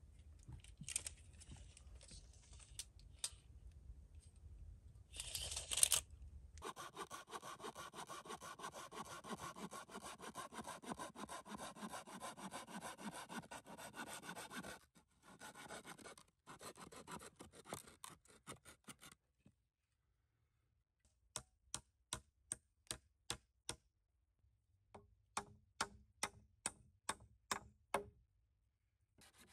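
Hand saw cutting wood: a long run of quick strokes, then after short pauses two series of slower, even strokes at about two a second.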